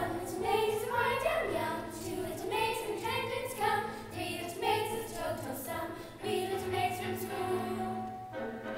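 A song sung by a group of high voices, women or children, in a theatrical style with instrumental backing.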